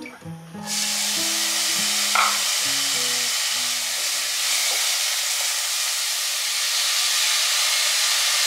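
Food frying in a hot pan: a steady sizzle that starts abruptly about a second in.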